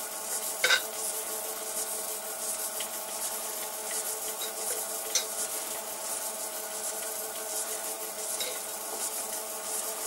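A metal lathe runs with a steady whine while a 16 mm spiral-fluted reamer cuts into a drilled hole in a metal block, making a continuous scraping hiss. A sharp click comes about a second in, the loudest sound, and a smaller one comes about five seconds in.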